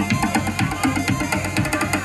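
Electronic dance music with a steady, driving drum beat, played as a DJ set from a mixer and pad controller.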